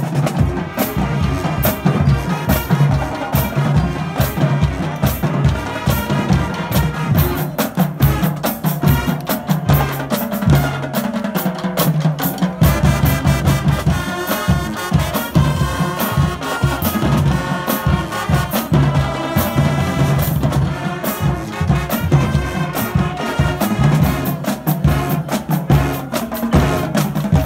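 High school marching band playing in the stands: brass with a steady drum beat, the low end growing fuller about halfway through.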